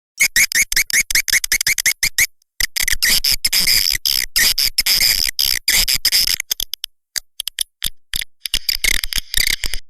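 Swiftlet lure call recording of edible-nest swiftlets: a rapid, continuous chattering of short high chirps, starting abruptly just after the beginning with a couple of brief breaks. It is the kind of call played in a swiftlet house to attract swiftlets and keep them roosting there.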